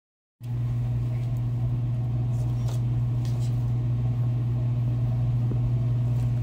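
A steady low electrical hum that cuts in about half a second in after a brief total dropout and holds at an even level.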